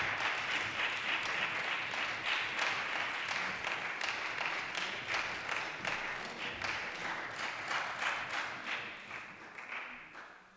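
Audience applause, many hands clapping at once, fading away gradually over the last few seconds.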